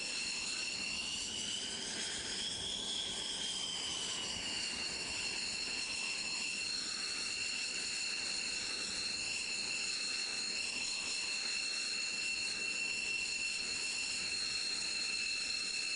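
Turbofan jet engine of an X-47B drone running at idle on deck: a steady high whine that rises and falls gently in pitch about two to four seconds in, then holds steady, over a haze of rushing noise.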